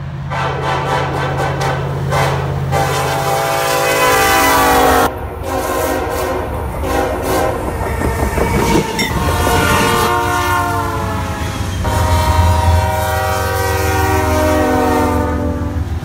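Diesel freight locomotive air horns sounding several long blasts, each one held note of several pitches at once, over the low rumble of the locomotives. The sound changes abruptly about five seconds in, where one clip gives way to the next.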